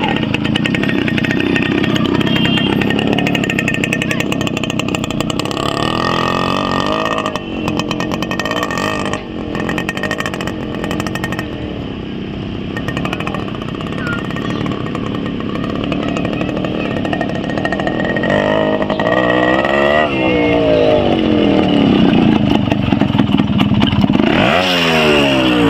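Yamaha RX motorcycle's two-stroke single-cylinder engine running while the bike is ridden, its pitch rising and falling with the throttle and gear changes. It grows louder over the second half as the bike comes closer, and near the end the revs fall away.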